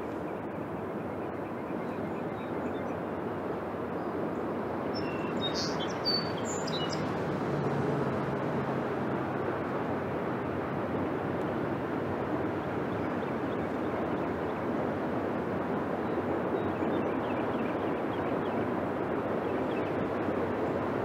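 Steady outdoor rumble that grows slightly louder, with a few short bird chirps about six seconds in.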